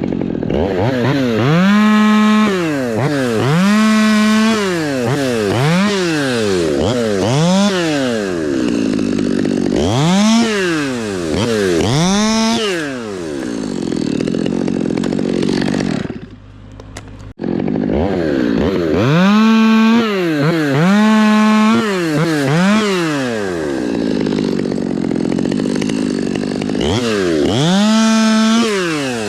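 Two-stroke chainsaw revved up and down over and over, held at full throttle for a second or two at a time between drops back toward idle, as it makes repeated cuts in dead fir. The sound breaks off briefly about halfway through.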